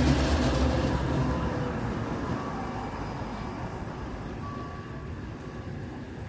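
A diesel railcar train passing over a level crossing, rumbling loudly at first and then fading steadily as it moves away.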